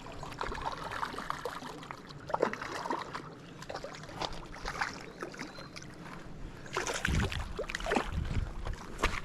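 Shallow river water splashing and sloshing around a wading angler bringing in a hooked smallmouth bass, with scattered small clicks and knocks. A few heavier low thumps come near the end.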